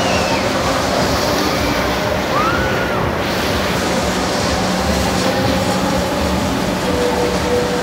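Churning white water rushing through a water ride's channel, a loud, steady roar of noise with a faint steady mechanical hum under it. A couple of brief, high squeaky tones rise and fall over it.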